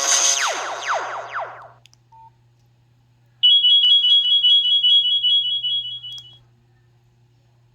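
Nokia 5610 phone speaker playing its preloaded ringtones. A plucked, guitar-like ringtone dies away in the first two seconds, and a short beep follows. About three and a half seconds in, a loud, high, steady alarm-like electronic tone sounds for about three seconds and stops abruptly.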